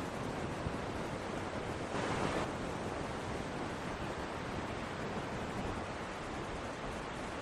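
Steady rushing noise, wind or water-like, with a brief louder surge about two seconds in.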